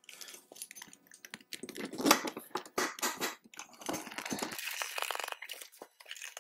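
Handling noise from a motorcycle seat being fitted: small clicks and knocks from its metal bracket and rustling, rubbing sounds from the vinyl seat, with the loudest knock about two seconds in.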